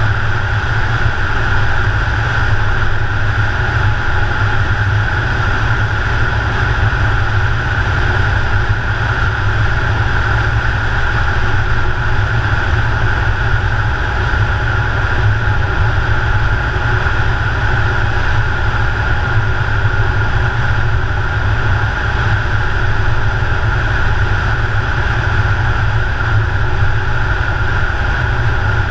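Car driving steadily at road speed: constant tyre, road and wind noise, with a strong low fluttering rumble of wind on a microphone mounted on the outside of the car.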